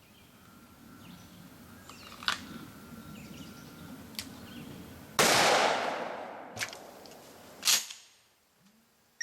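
Shotgun fire: one loud blast about five seconds in that dies away over a couple of seconds, with several shorter sharp cracks before and after it.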